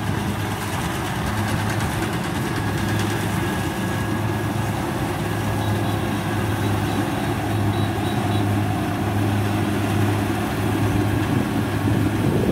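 Kubota DC60 rice combine harvester's diesel engine running steadily under load as it cuts rice, a constant even drone with a strong low hum.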